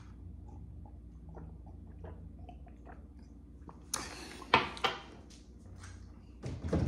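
A man sipping and swallowing from a glass of almond milk, with faint small mouth and glass sounds, then a short sharp exhale of distaste about four seconds in, followed by a couple of sharp knocks and handling sounds at the open refrigerator.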